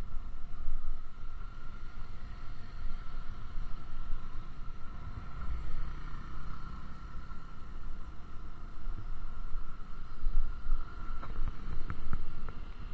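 Motorcycle riding at speed: wind rumbling over the microphone, with the bike's running and road noise underneath. A few light clicks near the end.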